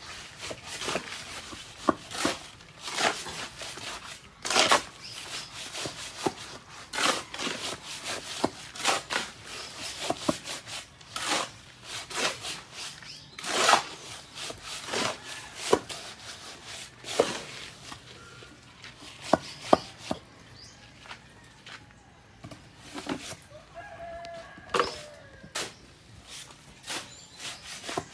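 Irregular sharp knocks and clacks of wood being struck, sometimes several a second and sometimes a few seconds apart. A rooster crows briefly about 24 seconds in.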